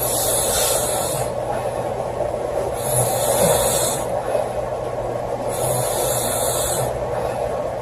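A woman snoring in a slow, even rhythm, one breath roughly every three seconds, each with a hissing rush of air. A steady background hiss runs underneath.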